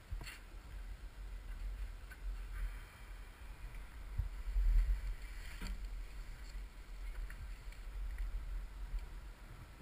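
Low rumble of wind and handling on a GoPro's microphone, with scattered small clicks and knocks, the loudest swell about halfway through.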